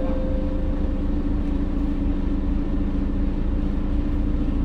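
Mercedes-Benz OC500LE bus's diesel engine running steadily: a low rumble with a constant hum that holds one pitch.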